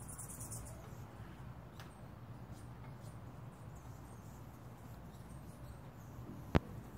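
Faint, high-pitched squeaky chatter of hummingbirds squabbling at a feeder, mostly in the first second, over a low steady background rumble. One sharp click near the end.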